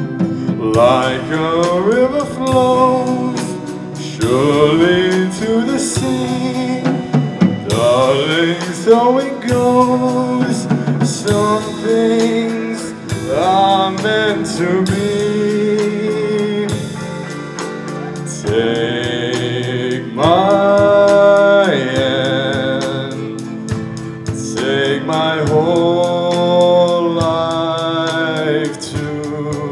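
A small live band playing a song: a male lead vocal with gliding and long held notes over guitars, keyboard and a drum kit.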